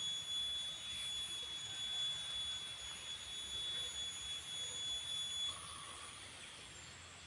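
Cicada giving a steady, high-pitched whining call that stops abruptly about five and a half seconds in.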